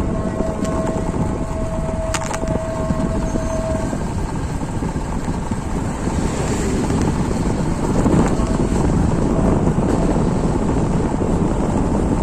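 Heavy rain falling steadily, with a steady tone humming from the start until about four seconds in.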